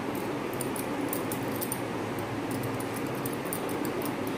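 Faint, light clicking and ticking from soft dough balls being rolled and set down by hand on a steel plate, over a steady background hum.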